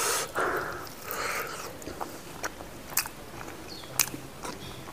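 Close-miked chewing and lip-smacking of a person eating sticky rice, with a short breathy rush at the start and a few sharp wet mouth clicks later on.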